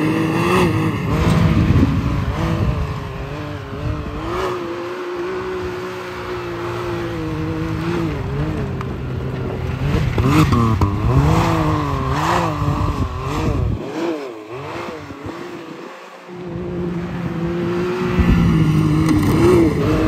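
Can-Am Maverick X3 side-by-side's three-cylinder engine revving up and down again and again as the machine slides and spins through snow. The pitch swings quickly several times near the middle, drops back briefly about three quarters of the way through, then climbs again.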